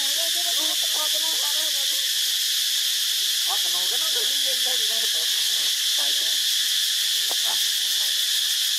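Steady high-pitched drone of an insect chorus, with faint voices rising and falling in the first two seconds and again around four to six seconds in.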